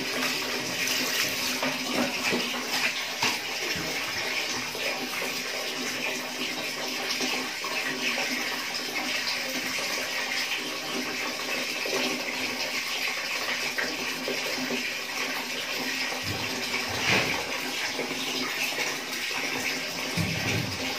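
Water running and splashing steadily as a small wet dog is bathed on a tiled floor, water poured over its coat from a plastic dipper and its fur rubbed by hand.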